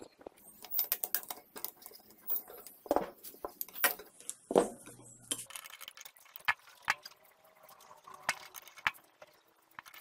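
Irregular clicks, taps and scrapes of a screwdriver and other hand tools against the metal housing of a small electric motor being taken apart, with a sharper knock about halfway through.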